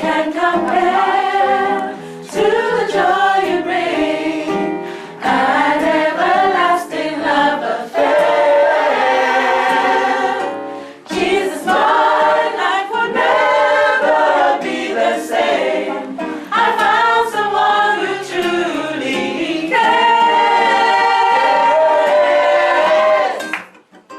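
Gospel choir singing in several harmonised parts, in sustained phrases separated by short breaths.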